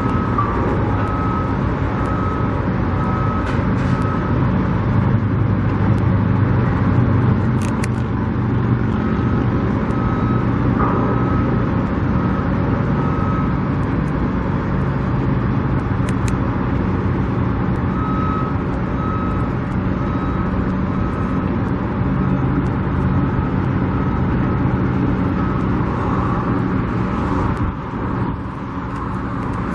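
Steady rumble of a running vehicle engine and road noise. Over it, a high electronic beep, typical of a construction vehicle's backup alarm, sounds in several runs of evenly spaced beeps.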